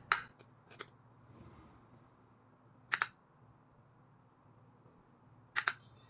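Push buttons on an LED strip controller clicking as they are pressed to step through its built-in lighting modes. There is a click right at the start and two faint ticks soon after, then a sharp double click, press and release, about three seconds in and again near the end.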